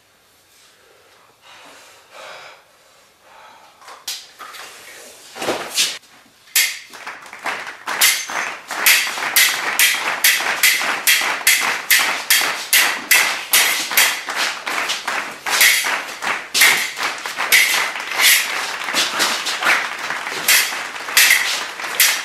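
Swords clashing, metal on metal: quick, sharp, ringing strikes, a few a second. They start sparsely about four seconds in and then run on with hardly a break.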